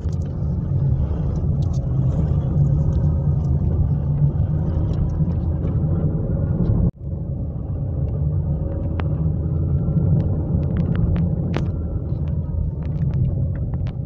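Car driving on an unsealed dirt road, heard from inside the cabin: a steady low rumble of engine and tyres, with scattered small ticks and clicks from stones or rattles. The sound breaks off for an instant about seven seconds in.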